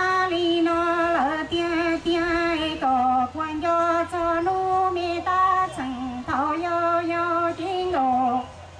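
A woman singing a Hmong song into a microphone, holding long, slightly wavering notes in a series of phrases, with a phrase ending near the end.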